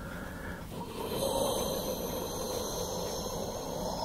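A man's breath close to the microphone: a short breath, then from about a second in a long, rough exhale.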